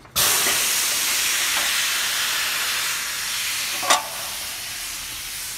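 Compressed air hissing loudly and steadily, switched on abruptly, with a single click about four seconds in.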